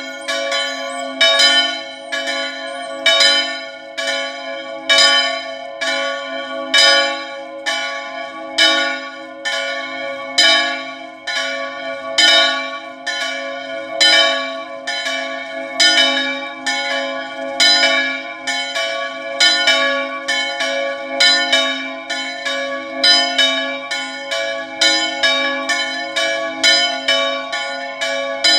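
Two motor-swung church bells, the D4 bell by Pasquale Marinelli and the F4 bell by Peppino Mari, ringing a festive full-swing peal (distesa). Their strokes interleave at about two a second, and the ringing carries over unbroken between strikes.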